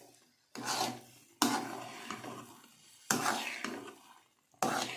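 A spatula scraping and turning thick semolina halwa in a kadhai in four separate strokes, each with a sudden start. The halwa is nearly done, releasing ghee and coming away from the sides of the pan.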